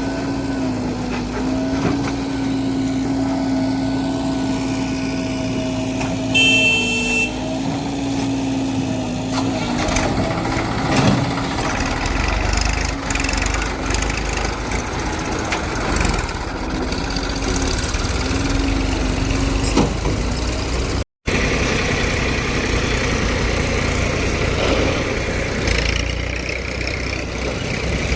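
Heavy diesel engine running steadily, with a brief higher-pitched tone about seven seconds in. The sound cuts out for an instant about two-thirds of the way through.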